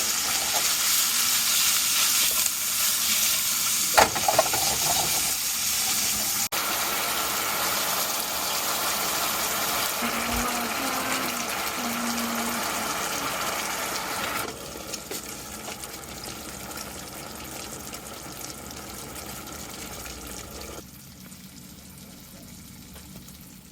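A steady hiss of noise with a single knock about four seconds in. It drops in level about two-thirds of the way through and again near the end.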